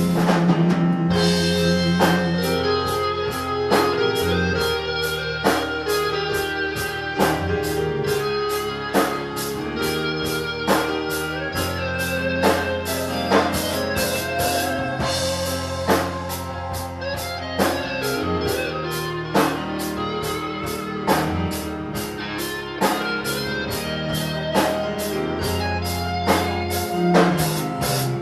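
A live band plays an instrumental break of a gospel rock song, with guitar over a drum kit keeping a steady beat.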